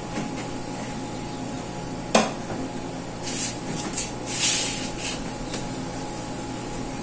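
Refrigerator cleaning: a single sharp knock, then a run of short, high hissing noises, over a steady background hum.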